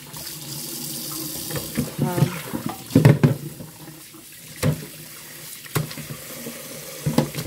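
Tap water running steadily into a plastic bowl in a stainless steel sink while round scad fish are rinsed. Several sharp knocks and splashes come from handling the fish and bowl in the sink, the loudest about three seconds in.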